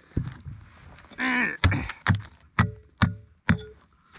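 A series of hard blows onto the 3D-printed nylon end of a metal detector's swing arm pushed into loose dirt: five strikes about two a second, the last three each followed by a brief ring. This is a deliberate durability test of the part. A short vocal sound comes just before the strikes begin.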